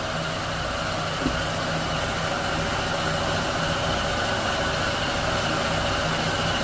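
Steady hum and whoosh of a running machine, holding at one level throughout.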